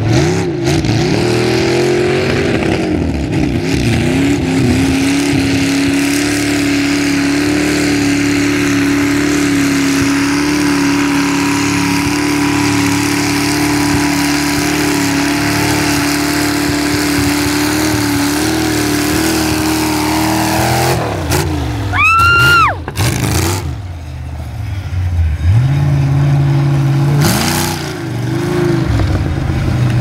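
Lifted Chevy mud truck's engine revving up, then held at high revs for about fifteen seconds while its tractor tires spin and dig through the mud, before it drops off about 21 seconds in. A brief high rising squeal follows, then another mud truck's engine revs up near the end.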